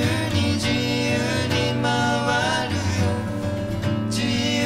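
Two acoustic guitars playing a song together.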